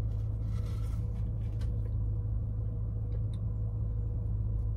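Steady low hum of a car's idling engine heard inside the cabin, with a few faint ticks over it.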